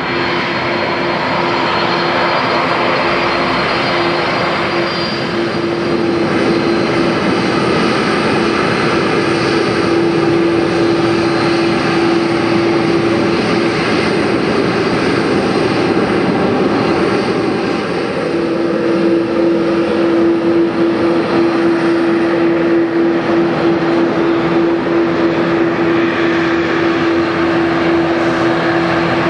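Boeing 747-400 jet engines running at high power for the takeoff roll: a loud, steady jet noise with a steady droning tone through it. The tone fades out for a few seconds midway and then returns.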